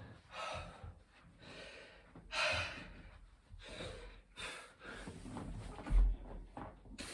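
Heavy, gasping breaths of a man exhausted mid-rep in a high-rep burpee set, coming roughly once a second. A low thump sounds about six seconds in, as his body hits the floor.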